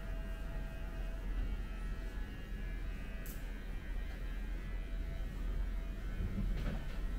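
Steady low electrical hum, with one faint high tick about three seconds in.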